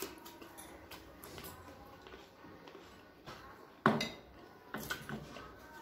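Plates knocking and clinking as two people eat rice with their hands, fingers mixing and scooping food on the plates. One sharp knock against a plate just before four seconds in is the loudest sound, with a few lighter knocks soon after.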